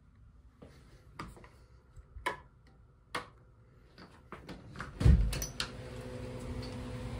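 A few scattered clicks and taps, then a brass doorknob turning and an interior door opening, its louder knock and latch sounds clustered about five seconds in. After the door opens a steady low hum comes in.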